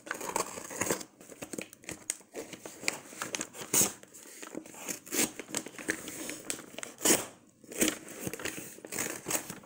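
Brown paper parcel wrapping and clear packing tape being handled and pulled at, crinkling and crackling irregularly, with several louder rustles.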